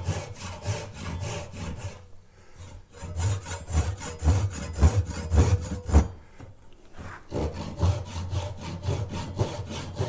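Fine-toothed Japanese saw cutting a slot in a hardwood pen blank with quick back-and-forth strokes, in three runs with short pauses between. The slot is being cut for a lock pick's tang and is nearly down to the marked line.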